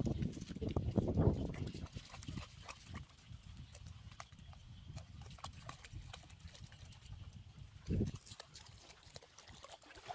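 Wading steps splashing through shallow water: a dog and a person walking, heavy splashes through the first second or so, lighter scattered splashes after, and one more heavy splash about eight seconds in.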